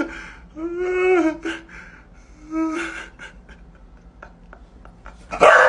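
A dog whining back in two drawn-out, slightly bending moans, about a second in and again near three seconds, grumbling at being laughed at. A short loud burst of noise near the end.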